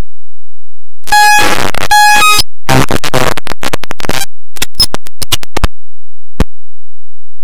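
Bursts of harsh noise with steady tones running through them, starting about a second in. A longer stretch of noise follows, then a quick run of sharp clicks and one last click.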